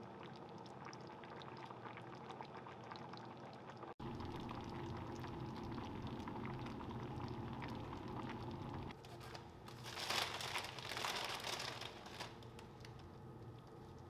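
Coconut-milk green curry simmering in an enamelled cast-iron skillet, bubbling with a stream of small pops. About ten seconds in there is a louder rustling noise lasting around two seconds.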